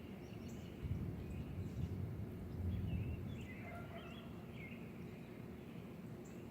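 Outdoor ambience: a low, gusting rumble that swells about a second in and again around three seconds, with a bird chirping a few times in the middle.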